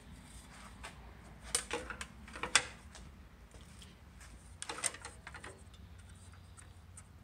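Sharp clicks and knocks of hand work on a sliding compound miter saw, with a plastic square being set on its table against the blade. They come in two clusters, one around two seconds in with the loudest knock, and another about five seconds in.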